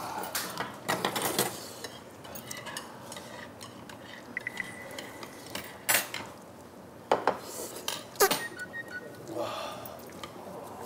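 Eating at a table: chopsticks and spoons clicking and clinking against bowls and a stew pot in scattered, irregular knocks, with slurping of broth from a bowl.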